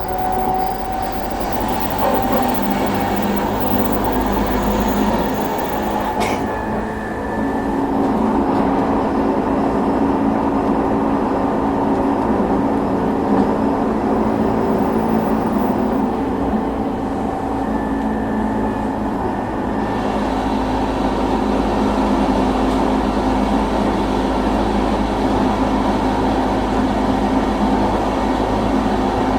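Running noise inside the motor car of an E233 series 2000 subseries electric train at speed: traction motor and wheel-on-rail noise, with a steady growling abnormal noise that this car makes at mid-to-high speeds.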